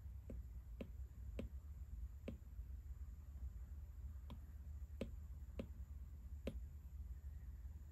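Stylus tapping on a tablet's glass screen: about eight faint, sharp taps at uneven intervals, over a steady low hum.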